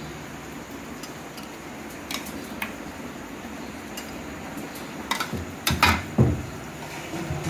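Metal ladle and serving utensils clinking against a steel pot and ceramic bowls as paye is ladled out: a few light clinks, then a cluster of louder knocks and clatter about five to six seconds in.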